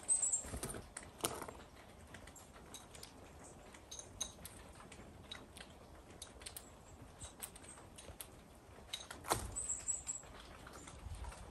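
Scattered light taps and clicks of birds at a window feeder tray, a blue jay among them, with a few faint high bird chirps just after the start and again about ten seconds in.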